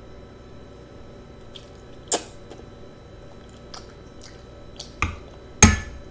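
A metal fork clinks and scrapes against a plate while twirling spaghetti: a series of sharp clicks, scattered at first, then closer together and louder near the end.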